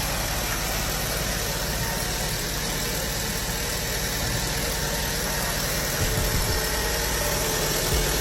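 Chevrolet Cruze engine idling steadily, with its water pump newly replaced.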